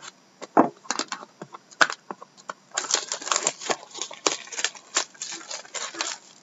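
Plastic shrink-wrap crackling and tearing, with small cardboard clicks, as a sealed hobby box of hockey cards is opened; scattered at first, then a dense run of crinkling about three seconds in.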